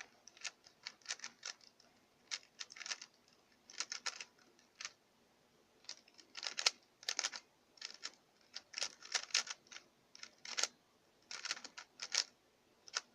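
QiYi Sail 3x3 speedcube being turned fast during a timed solve: quick runs of clicking plastic layer turns, broken by short pauses.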